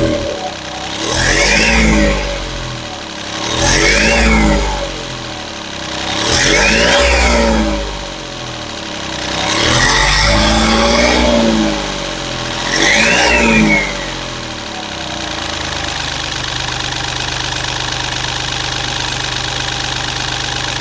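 Mahindra Bolero's turbocharged diesel engine revved five times in short blips. Each rev brings a turbo whistle that rises and falls, and the engine drops back to a steady idle a few seconds from the end.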